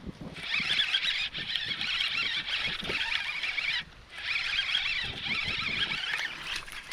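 A dense, high-pitched droning chorus that cuts out briefly twice. Scattered low thumps and rumbles sit beneath it.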